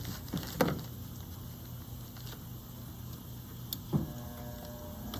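A few light clicks and taps of small metal parts and tools being handled over a steady low hum. A tap about four seconds in leaves a brief faint ring.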